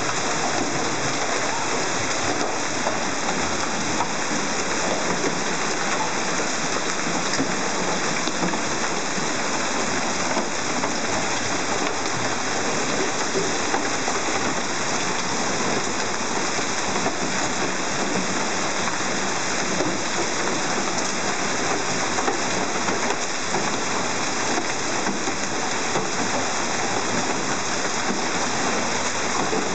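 Hail and rain pelting parked cars and the hail-covered street during a heavy hailstorm: a loud, steady, dense patter of countless small impacts.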